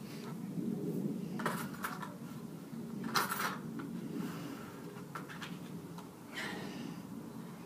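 A bucket of ice water being handled and lifted, with three short clinking rattles of ice and bucket.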